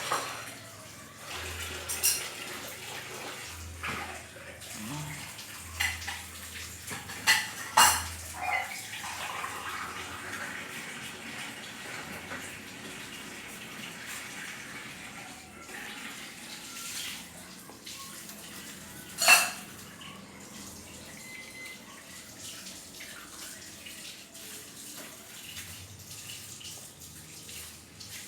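Avanti microwave oven running with a steady whooshing fan noise. For the first several seconds a low buzz switches on and off about once a second, and a few sharp clicks or knocks are heard, the loudest about two-thirds of the way through.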